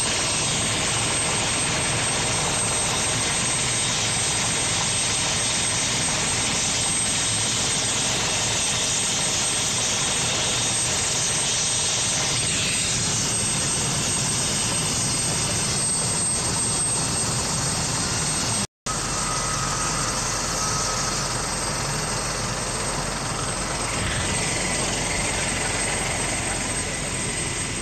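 Helicopter turbine engines running on the ground: a steady loud rush with a high, steady whine. The audio cuts out for an instant about nineteen seconds in.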